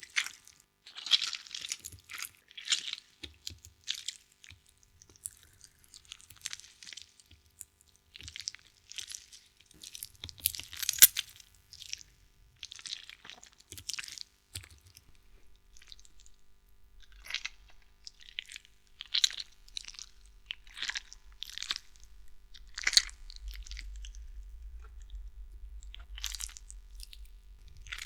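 Horror gore sound effect of bloody guts: irregular crunching bursts, one after another. A low rumble comes in about halfway and grows near the end.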